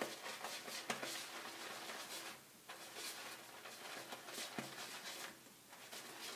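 Kent BK4 shaving brush swirling over a hard Mitchell's Wolf Hat shaving soap puck while loading soap: a soft, scratchy bristle hiss that comes in strokes with brief pauses, with a couple of light taps.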